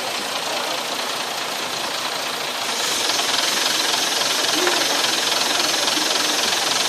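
Boat engine running with a dense mechanical noise. It gets louder and harsher from about three seconds in.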